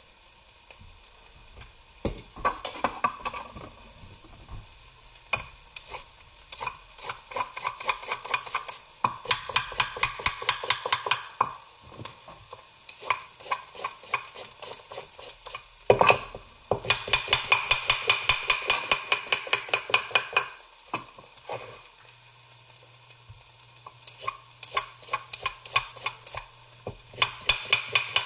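A vegetable peeler scraping down raw carrots in quick strokes, about five or six a second, in runs of a few seconds with short pauses between them. One sharp knock on the wooden cutting board about halfway.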